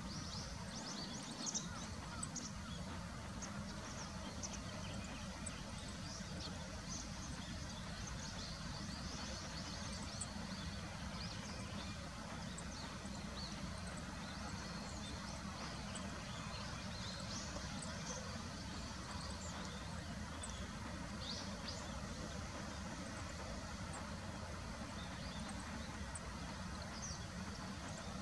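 Riverside ambience: a steady low background hum with many faint, short, high-pitched bird calls scattered throughout.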